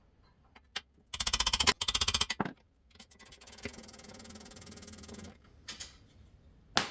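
Power tool, most likely a cordless impact wrench, hammering a 15 mm brake caliper bracket bolt loose for about a second and a half in a loud rapid rattle. It then spins the bolt out with a steadier, quieter whir for about two seconds, and a sharp metallic click follows near the end.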